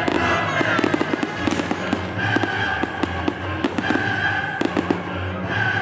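Fireworks display: a rapid run of shell bursts and crackling bangs, several a second, with music playing underneath.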